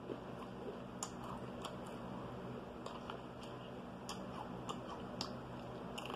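Eating sounds close to the microphone: chewing, with irregular sharp clicks and crunches about once or twice a second.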